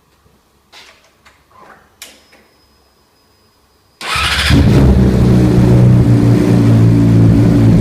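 Yamaha R6's 599 cc inline-four with a full aftermarket exhaust system, fired up about four seconds in after a few faint clicks, catching at once and settling into a loud, steady idle.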